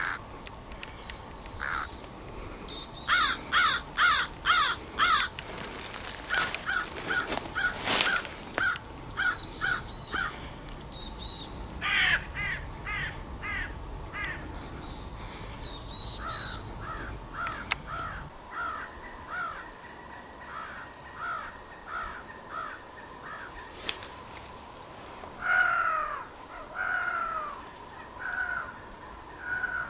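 Squirrel barking calls in rapid series of about four a second, loudest a few seconds in, then softer runs and a few longer falling calls near the end.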